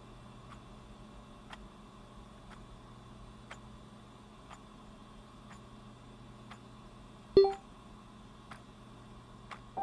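Clock ticking steadily, about once a second. About seven seconds in, a short pitched electronic chime sounds once, a chat message notification.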